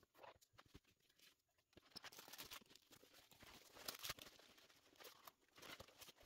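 Faint rustling, crinkling and light tapping of a craft kit's packaging being handled and opened by hand, growing busier about two seconds in.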